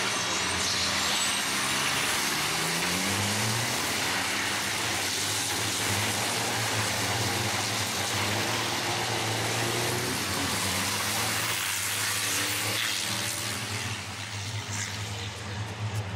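Diesel engines of a pack of racing trucks running hard past on the circuit, their pitch rising as they accelerate in the first few seconds and then holding steady. The sound fades about two seconds before the end.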